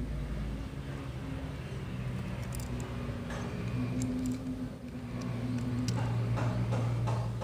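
Small metallic clicks and taps of a Dunhill Rollagas lighter's metal case and parts being handled and fitted together, a few in the middle and more near the end. Under them runs a steady low hum.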